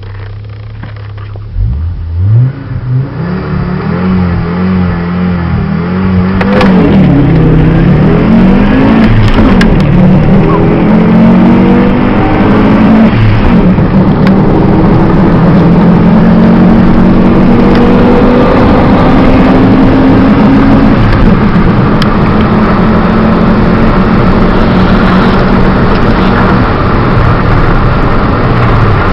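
Audi S4 engine heard from inside the cabin under a hard launch: a low steady note at first, then the engine note climbing after a couple of seconds, and from about six seconds in loud, sustained running with the pitch rising and dipping, over road and wind noise.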